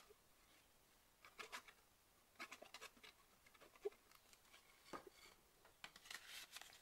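Faint scratches and rustles from thick paper being handled while the nozzle of a craft glue bottle is dabbed onto a folded page. They come in short clusters with near silence between.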